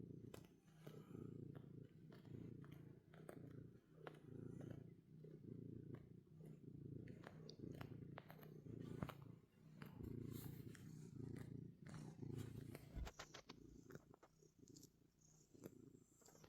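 A cat purring, faint and close, the purr swelling and dipping about once a second with each breath in and out, with a few light clicks over it.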